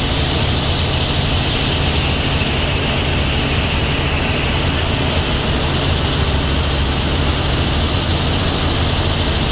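Steady cabin noise of a Robinson R44 helicopter in cruise flight: the six-cylinder piston engine and rotor drone, with the rush of air over the cabin, heard from inside the cabin.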